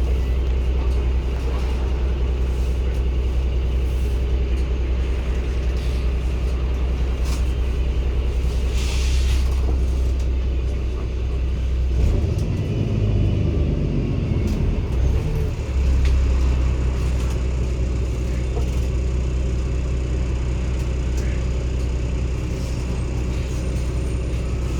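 Cummins ISB 280 PS six-cylinder diesel engine of a 2016 NEW BS090 city bus running with a steady low drone; its note shifts and rises for a few seconds about halfway through, and there is a short hiss about nine seconds in.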